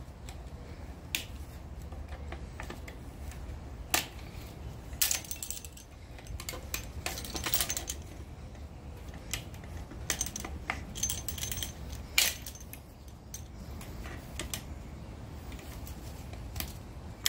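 Scattered metal clicks, clinks and short rattles of rear drum brake hardware being worked by hand with locking pliers, with springs and parts knocking against the steel shoes and backing plate as the parking brake cable is hooked into its lever arm.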